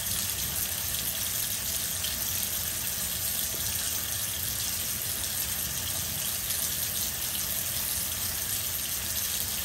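Bathroom tap running steadily into a sink.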